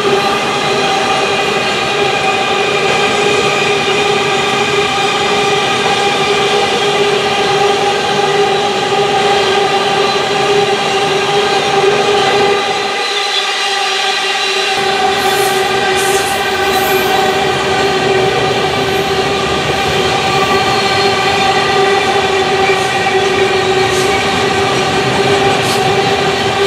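Loaded iron-ore wagons of a long train rolling past on the rails, a continuous rumble with a steady pitched tone running through it. The low rumble briefly drops out about halfway through, and a few light clicks come near the end.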